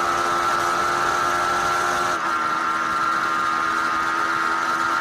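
Racing motorcycle engine held at steady high revs, heard from on board with rushing wind. It dips briefly about two seconds in, then carries on at a slightly lower pitch.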